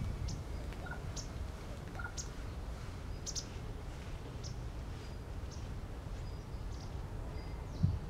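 Short, sharp, high-pitched calls of small songbirds, roughly one a second and sometimes two in quick succession, over a steady low outdoor rumble.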